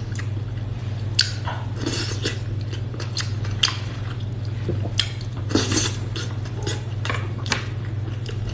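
Close-up eating sounds: wet chewing with a sharp click every second or two, over a steady low hum.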